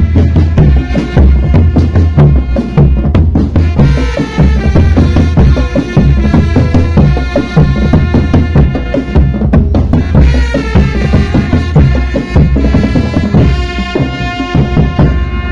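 Indonesian drumband playing: bass and snare drums beating continuously under a loud pitched melody line.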